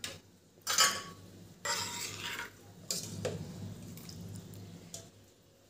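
A ladle stirring cooked black-eyed peas in an open pressure cooker: two wet scraping strokes, then a couple of light clinks against the pot.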